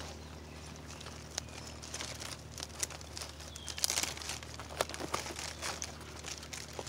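Dry hemp-fibre tinder nest crinkling and rustling as it is handled, with scattered sharp clicks.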